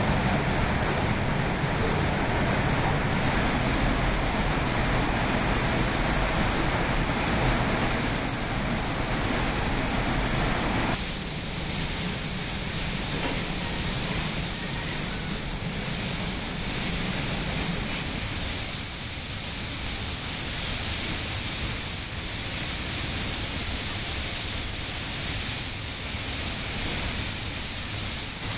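Steady hiss and rumble of a car-body paint line. About eleven seconds in the rumble drops away and a brighter, thinner hiss of paint-booth air and spray guns takes over.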